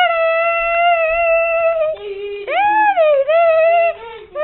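A child's high voice wailing long, held notes, with a swoop up and back down in the middle.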